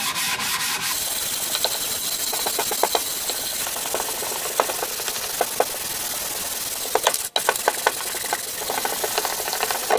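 400-grit sandpaper on a solid hand sanding block stroked back and forth across the machined face of a Ford C6 automatic transmission's aluminium valve body, a steady hiss with a brief pause about seven seconds in. The face is being sanded flat to check it for warpage.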